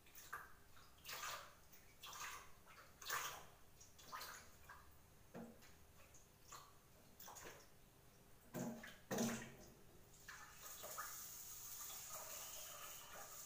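Washing things by hand at a kitchen sink: short splashes and knocks of items being rinsed, then a tap running steadily from about ten seconds in.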